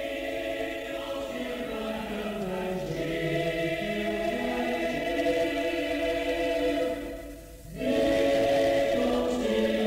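A choir singing in harmony, slow long-held chords, with a short break about seven and a half seconds in before the next phrase.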